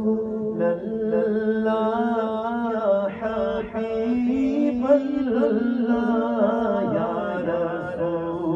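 A man singing an Urdu naat (devotional poem) unaccompanied into a microphone, in long ornamented melodic lines held over a steady low drone.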